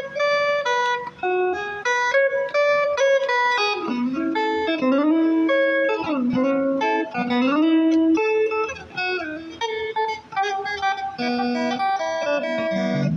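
Solo guitar picking a single-note melody, with sliding, bending notes in the middle; the playing is called about as poor guitar practice as ever heard.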